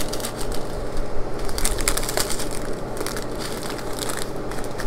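Small plastic bags of diamond-painting rhinestones handled and shaken: crinkling plastic with a dense, continuous crackle of the tiny drills shifting inside.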